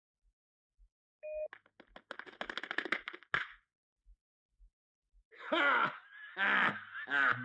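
A cartoon bear laughing loudly in a deep voice, in several short peals from about five seconds in. Before it come a brief beep and a quick clattering run of cartoon sound effects lasting about two seconds.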